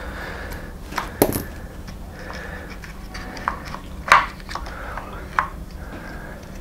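Small plastic clicks and taps of hands working servo leads and parts in an RC buggy's radio box: about five sharp ticks, the loudest about four seconds in, over a faint steady hum.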